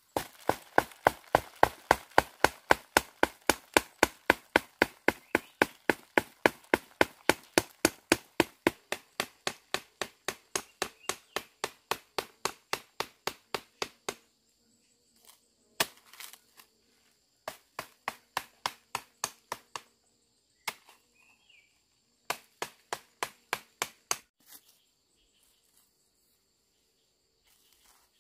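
A stick knocking sharply and steadily against the branch that holds an ant nest, about four blows a second, to shake the ant eggs loose. The beating stops about halfway through, then comes back in two short runs of blows.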